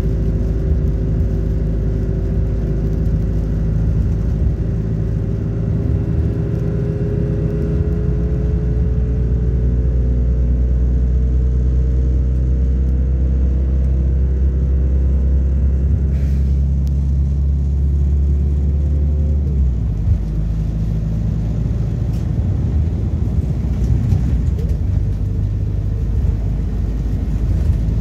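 Diesel engine and road rumble of a MAZ-226 midibus under way, heard from inside the passenger cabin. The engine note climbs slowly as the bus pulls, then drops away about two-thirds through as the load comes off.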